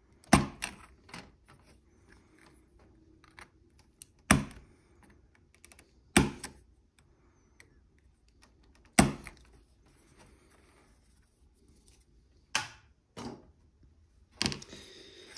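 Hobby knife cutting plastic model-kit parts free of the sprue: sharp clicks a few seconds apart, four loud ones and several softer ones toward the end.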